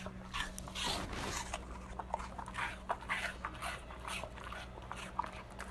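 A golden retriever crunching and chewing a slice of raw apple, with a string of irregular short, wet crunches.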